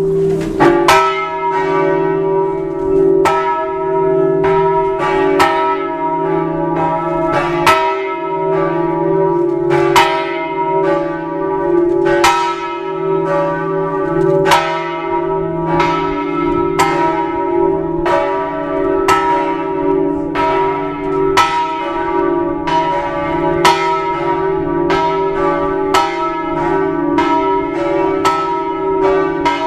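Bells of the Campanile di San Marco ringing, struck a little more than once a second. Each stroke rings out over a steady low hum from the bells.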